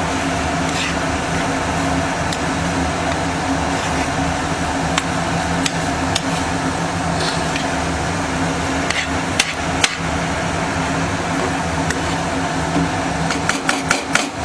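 A spoon knocking against a pan while mashed potato is mixed with cheese spread, with scattered sharp taps and a quick run of taps near the end, over a steady mechanical hum like a kitchen fan.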